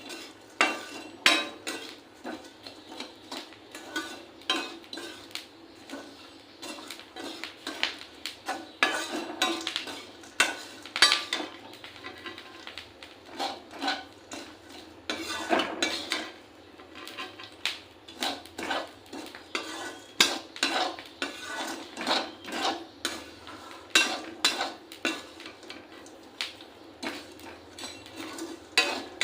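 A spatula stirring and scraping peas as they roast in a pan, making a busy run of irregular clinks and scrapes.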